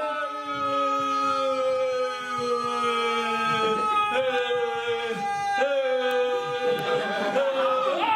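Two voices singing long held notes without accompaniment, one low and steady and the other higher. The low voice drops out near the end and the higher one slides upward.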